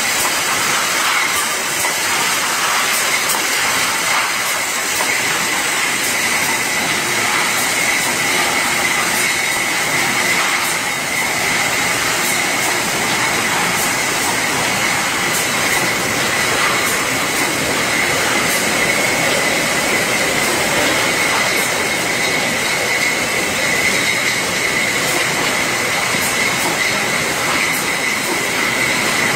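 Staban T05 tray packer with servo grouper running on a bottling line: conveyors and grouping mechanism moving glass bottles, a steady loud mechanical noise with a constant high whine and faint scattered clicks.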